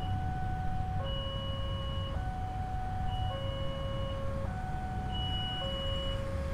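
Railway level-crossing warning alarm sounding: an electronic two-tone signal alternating steadily between a higher and a lower tone, each held about a second, warning that a rail vehicle is approaching. A steady low rumble runs underneath.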